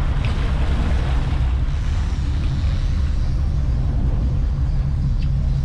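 Boat engine running steadily, a continuous low drone with an even hiss over it.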